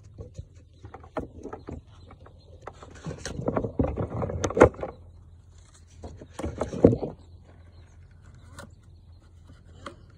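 Quick footsteps and scuffling on dry dirt and pine needles close by, with scattered clicks and knocks, in two busier bursts a few seconds in and again about two thirds of the way through.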